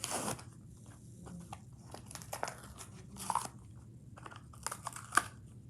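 Plastic blister packaging of a Hot Wheels die-cast car being crunched and torn open by hand: irregular crackles and snaps, the sharpest one about five seconds in.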